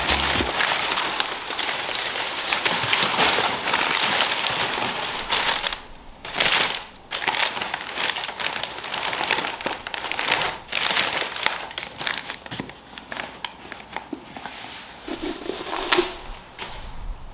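Brown kraft packing paper crumpling and rustling as it is pulled out of a cardboard shipping box. Continuous for the first five seconds or so, then in short bursts.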